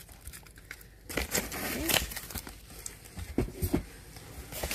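Small cardboard boxes with plastic wrapping being handled and shifted: scattered rustling, crinkling and light knocks.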